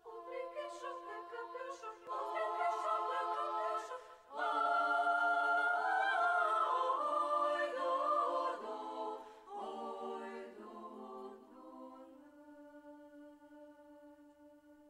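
Women's choir singing a cappella in held chords. The singing grows louder about four seconds in, then ends on a long sustained chord that fades away near the end.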